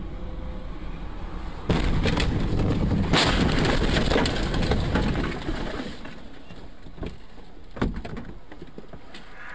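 Car crash heard from a dash cam inside a car: a sudden loud impact about two seconds in, then some three seconds of loud, rough noise that fades to quieter road noise with two sharp knocks near the end.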